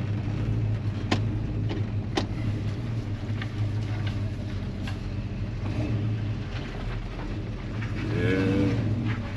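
Chevy C-10 truck's engine running low and steady through its newly fitted mufflers, heard from inside the cab as the truck pulls away slowly. The exhaust is now quiet where it had been very loud.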